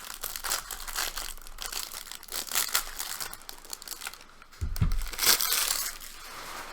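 Wrapper of a Donruss baseball card hanger pack crinkling and tearing as it is opened by hand, with a dull bump about four and a half seconds in.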